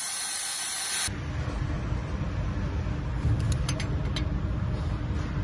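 Work on the engine's bolts with hand tools: a few sharp metallic clicks about midway, over a low steady rumble. The rumble follows a hiss that cuts off about a second in.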